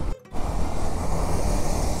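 Wind rushing over the microphone and a Bajaj Dominar 250 motorcycle running at cruising speed on the highway, cut off briefly by an edit near the start.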